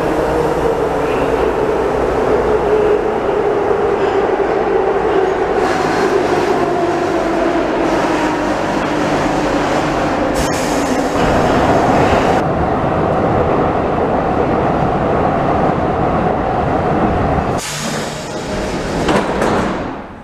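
Ev3 metro train braking into the station, with a loud running noise and a whine that falls steadily in pitch as it slows. About ten seconds in there is a sharp click and a two-second hiss as it stops, then a steady hum, and another burst of hiss near the end.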